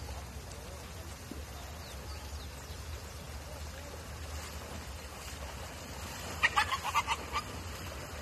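A small dog, apparently a Pinscher, yapping in a quick run of short, high calls, about eight in a second, starting about six seconds in: the irritated dog resisting being carried. Under it is a steady low rumble.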